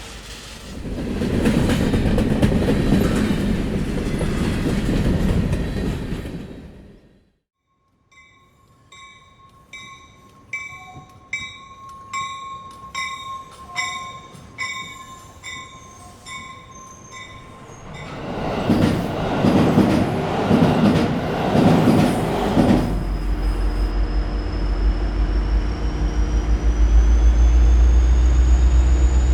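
A run of separate train recordings. It begins with about seven seconds of a train's rolling rumble, cut off by a moment of silence. Next come about ten seconds of evenly repeating ringing tones over a steady tone, then another burst of train running noise, and finally a passenger train's low motor hum with a high whine rising in pitch as it gathers speed.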